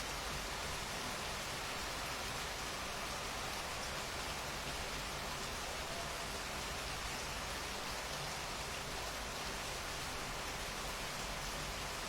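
Steady rainfall, an even hiss of rain on surfaces that holds at the same strength throughout.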